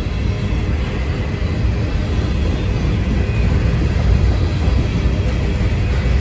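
Freight cars rolling past at close range, a steady low rumble of steel wheels on rail that grows a little louder toward the end.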